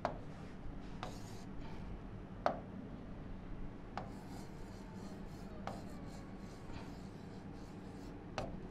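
A pen or stylus writing on the glass face of an interactive display board: faint scratching strokes with several short, sharp taps as the tip strikes the screen.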